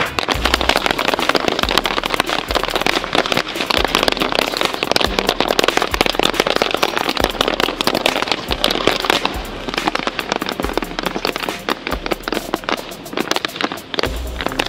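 Many Irish hard shoes and tap shoes drumming rapid, dense clattering beats on dance boards, over music with a steady bass beat about once a second.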